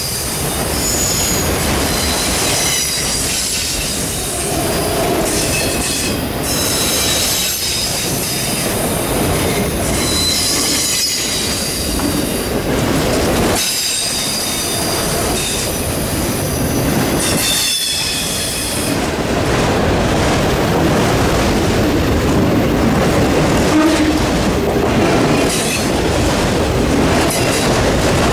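Freight train rolling past, its wheels squealing in high tones over a steady rumble and clatter of cars. The squeal dies away about two-thirds of the way through, leaving a slightly louder rumble and clatter.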